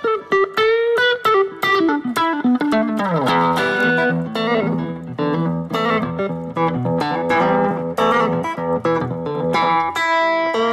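Background guitar music: a run of plucked notes, with one note sliding down in pitch about two seconds in.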